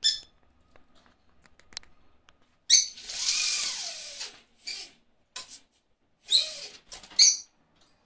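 Small caged pet parrots giving harsh squawks: a sharp one at the start, a long loud one about three seconds in, and several shorter ones near the end.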